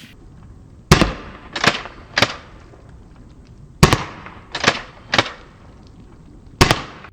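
Seven sharp shots from a CO2-powered non-lethal gun, in three groups (three, three, then one), each with a short echo.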